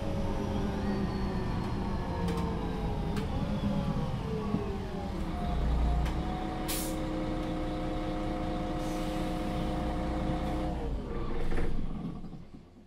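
Solaris Urbino III 12 city bus engine running down in pitch as the bus slows, then idling steadily, with a short sharp air-brake hiss about seven seconds in. About eleven seconds in the engine is switched off and runs down to a stop, and the sound fades away.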